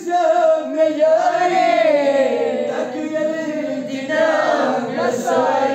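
Men's voices chanting a devotional prayer together in slow, drawn-out melodic lines that rise and fall.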